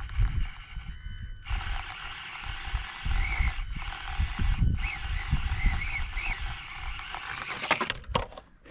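Axial SCX24 Deadbolt micro RC crawler's small electric motor and gears whining as it crawls over rocks. The pitch rises and falls briefly several times with the throttle, and the sound stops about eight seconds in with a few clicks.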